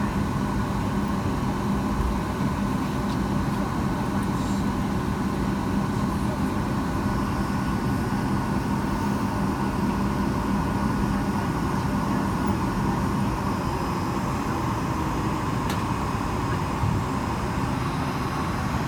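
Steady cabin noise inside a Boeing 757-200 on the ground after landing: the engines running at idle with an even rumble and a low steady hum, which drops out about two-thirds of the way through.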